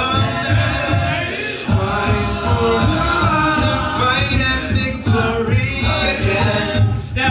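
Men's a cappella group singing in several-part harmony over a steady low beat about twice a second.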